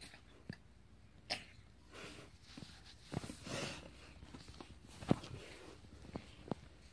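A cat wrestling and biting a catnip toy on a hard floor: scattered short knocks and thumps, with a brief scuffling rustle about three and a half seconds in and the sharpest knock about five seconds in.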